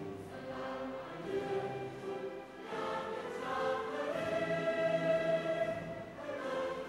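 A national anthem played over a PA system, sung by a choir with an orchestra, in long held notes.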